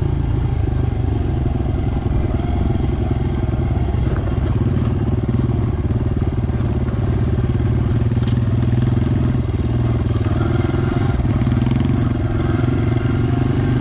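Dirt bike engine running at a steady, even pitch, heard from on the bike as it rides along a dirt trail.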